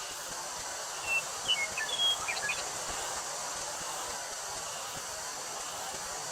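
Steady hiss of wind through a wheat field under a continuous drone of summer cicadas. About a second in, a bird chirps a quick run of short whistled notes.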